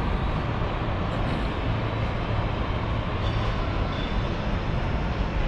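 Steady, even background noise of a busy indoor exhibition hall: the indistinct hubbub of a crowd and the hall's own din, with no single sound standing out.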